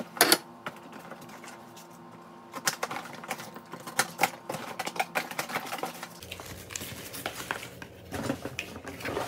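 Cardboard box and its inner packaging being pulled open and handled: an irregular run of crackles, scrapes and clicks, the sharpest just after the start.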